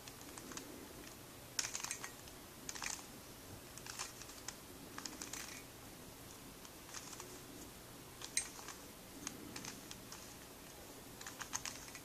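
Plastic clicking and clacking of a 3x3 speed cube's layers being turned by hand through the F2L algorithm R U2 R' U' R U R'. The clicks come in short runs, about one run every second or so.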